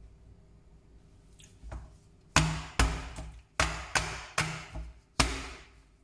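Metal springform cake pan full of chocolate cake batter knocked down on a granite countertop six times, each a sharp bang with a short metallic ring, starting a little over two seconds in. This settles the batter in the pan before baking.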